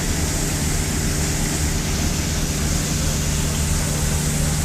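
Boat engine running steadily: a constant low hum with a steady hiss over it.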